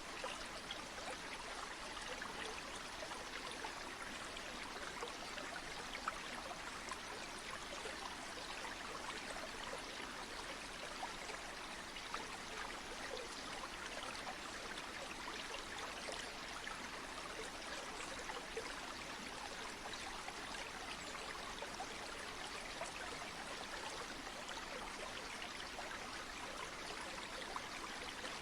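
Water of a stream or river flowing: a steady, even rush with small splashes and trickles in it.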